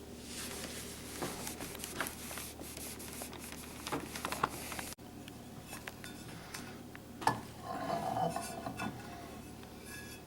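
Cleaning cloth rubbing and wiping over turntable surfaces, a hissing scrub broken by small clicks and knocks as parts are handled, with a brief squeak of cloth on a hard glossy surface about eight seconds in.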